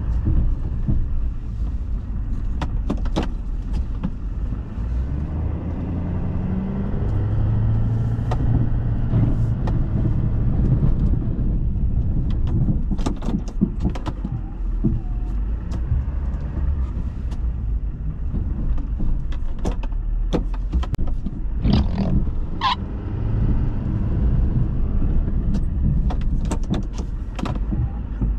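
Pickup truck engine running under varying throttle while plowing snow, its drone rising and falling in pitch, with scattered sharp clicks and knocks over it.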